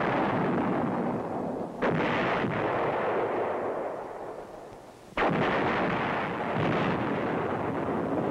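Artillery fire: three heavy blasts, one at the start, one about two seconds in and one about five seconds in, each trailing off in a long echoing decay.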